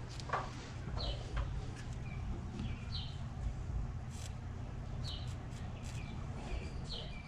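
A small bird chirping, short high falling chirps about once a second, over a steady low hum with a few light clicks.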